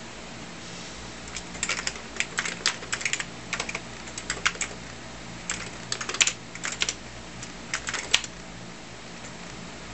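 Typing on a computer keyboard: several quick bursts of keystrokes with short pauses between them, over a steady low hum.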